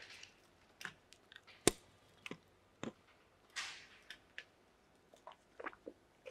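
Faint handling noise close to a clip-on microphone: scattered small clicks and taps as a small clear object is turned in the hands, the sharpest about two seconds in and a quick run of them near the end, with a few short hisses in between.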